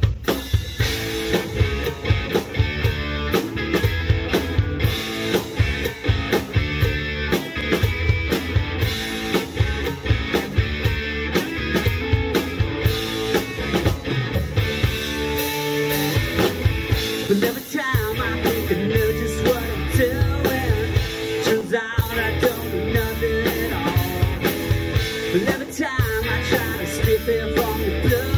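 A live rock band playing a song, with a drum kit keeping a steady driving beat under electric guitar.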